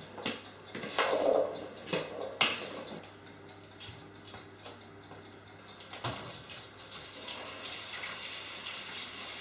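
A spoon stirring a wet oil-and-herb marinade in a plastic bowl, with several knocks of the spoon against the bowl in the first couple of seconds. Then quieter kitchen handling at the stove, with a few clicks of a pan and a glass lid.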